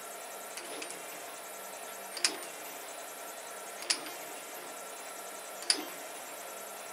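FDM 3D printer running with a low steady motor hum, and three sharp clicks about 1.7 seconds apart from its extruder feed mechanism, a large printed gear driving a hobbed bolt. The owner thinks the gear has so much play that it tilts rather than turns when the filament is retracted.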